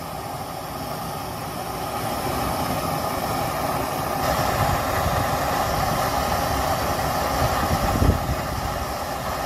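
Gas torch flame hissing steadily as it heats the exhaust pipe around a seized NOx sensor toward red heat. A light knock about eight seconds in.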